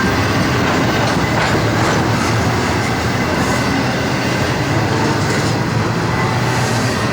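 Train passing at speed, a steady loud rolling noise of steel wheels on the rails.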